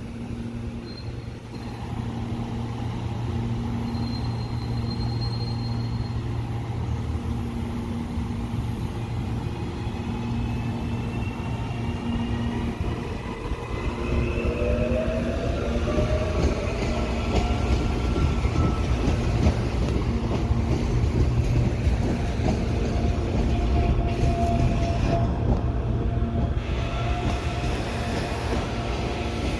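Electric commuter train running along a station platform, with a steady low hum. About halfway through, the motor whine rises in pitch and the sound grows louder as the train accelerates.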